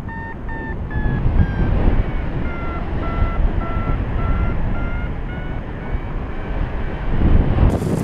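Paraglider's variometer beeping in short pulses, about two to three a second. Its pitch falls over the first few seconds, then lifts slightly before the beeps fade out, a sign of climbing in lift at a changing rate. Wind rumbles on the microphone underneath, and a sudden hiss replaces it near the end.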